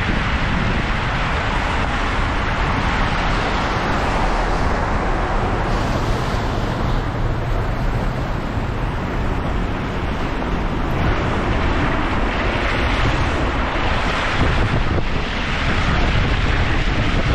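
Wind blowing across the microphone outdoors in a snowstorm, a steady loud rushing that swells and eases slightly.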